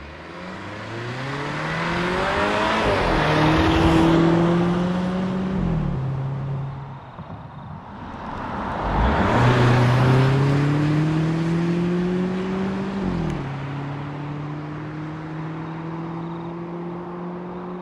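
The 2023 Volvo XC90 B6's 2.0-litre turbo-petrol four-cylinder pulling hard under acceleration. Its note climbs steadily in pitch and drops at an automatic upshift about five and a half seconds in, climbs again and drops at another upshift about thirteen seconds in, then holds steady.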